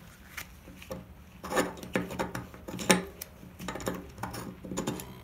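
Metal parts of a disassembled three-speed coaster brake hub clinking and tapping as they are handled, a string of irregular light clicks and knocks.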